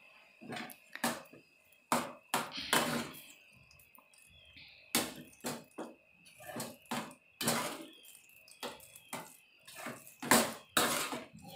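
Metal spoon stirring paneer bhurji in a small steel pan, scraping and clinking against the pan in irregular strokes, two or three a second.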